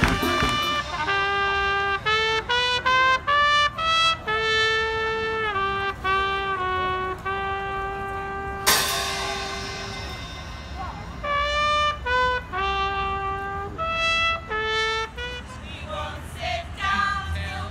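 A solo brass instrument playing a slow melody of held notes, pausing about ten seconds in and then resuming. A single sharp knock lands about nine seconds in, and voices singing come in near the end.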